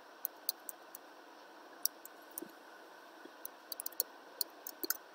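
Computer keyboard keys clicking in scattered, irregular keystrokes, typing and deleting, more tightly spaced near the end, over a faint steady hiss.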